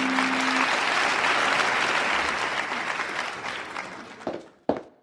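Concert audience applause, a dense patter of clapping that fades away over about four seconds, just as a held musical chord dies out.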